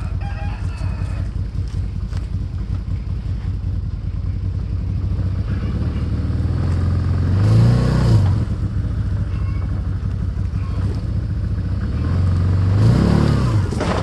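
Can-Am Commander side-by-side engine idling steadily, revved up and back down twice: once about eight seconds in and again near the end, each rev lasting about a second.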